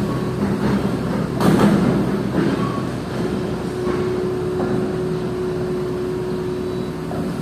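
Heavy diesel machinery engine running steadily, with a sharp metallic clank about one and a half seconds in and a few lighter knocks of steel parts.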